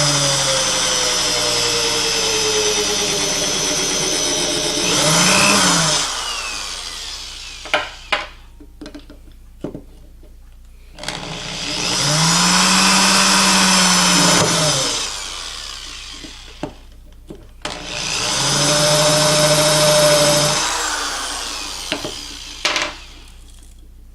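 Power drill boring holes through plastic PVC pipe end caps set on a block of wood, run in three bursts, each spinning up and winding down. Sharp clicks and knocks from handling the caps fall between the bursts.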